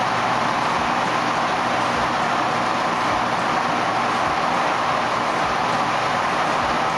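Washing machines running: a steady mechanical noise with a faint low hum under it.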